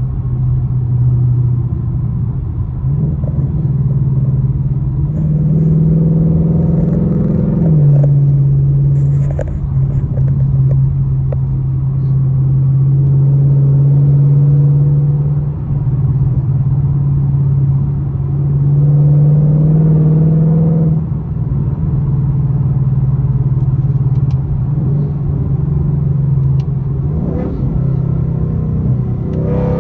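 Ford Mustang GT's V8 exhaust droning loudly, heard from inside the cabin while cruising. The steady engine note shifts in pitch about eight seconds in and again around twenty seconds in, as the throttle or gear changes.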